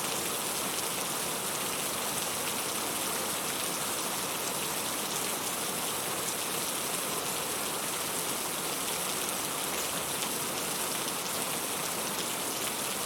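Steady rain falling: an even hiss with scattered drop ticks, unchanging throughout.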